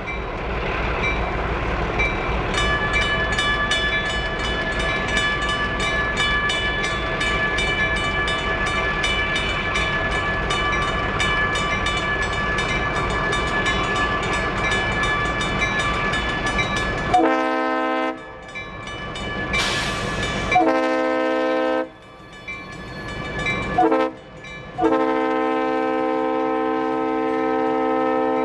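Grade-crossing bell ringing rapidly over the low rumble of an approaching diesel freight train. About two-thirds of the way through, the lead locomotive's air horn sounds the grade-crossing signal: two long blasts, a short one, and a final long blast.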